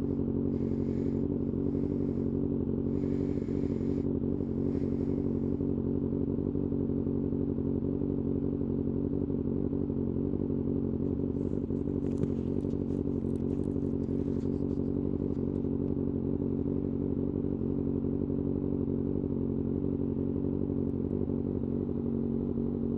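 Kawasaki ZX-6R inline-four engine running at a steady cruising speed, its pitch holding level without revving up or down. Faint patches of high hiss and rattle come and go over the engine note, early and again around the middle.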